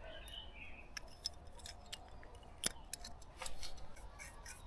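Small metallic clicks and ticks from a carburetor bolt and hand tool being handled while the bolt is put back in, with one sharper click near the middle and a short flurry of clicks a little later.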